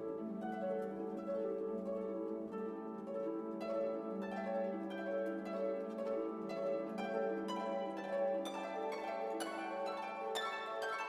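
Orchestral background music with plucked harp and pizzicato string notes over held tones.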